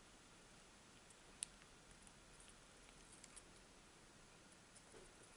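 Near silence with a few faint clicks from a soldering iron tip and solder wire touching a Walkman's circuit board, one sharper click about a second and a half in.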